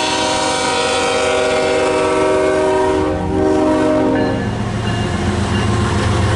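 Diesel freight locomotive's air horn sounding a long chord of several tones, cutting off about four and a half seconds in. It leaves the steady low rumble of the passing locomotive and train.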